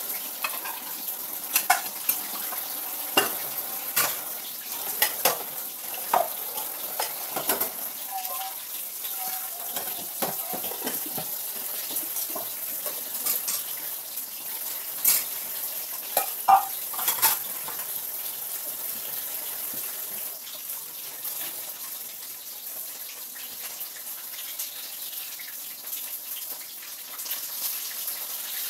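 Food sizzling as it fries in a pan, a steady hiss, with sharp clinks and knocks of utensils and dishes through the first half.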